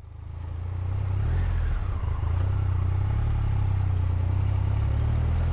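Triumph Tiger 1200's three-cylinder engine running steadily as the motorcycle rides along, fading in over the first second.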